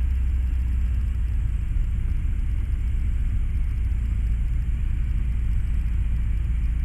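Grob 109A motorglider's engine and propeller droning steadily, heard from inside the cockpit.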